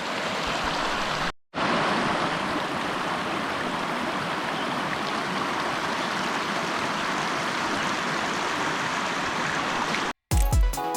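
Creek running high and fast with snowmelt, a steady rush of water, cut off briefly about a second and a half in. Near the end it stops and music with deep bass hits starts.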